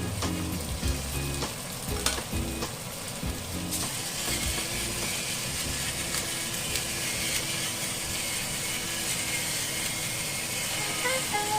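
Food frying in a pan, a steady sizzle that grows louder about four seconds in, with a few sharp utensil clicks early on.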